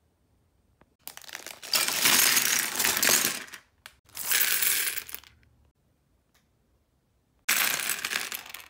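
Loose Lego pieces poured out of plastic bags, clattering onto a Lego baseplate in three bursts: a long one about a second in, a shorter one near the middle, and another near the end.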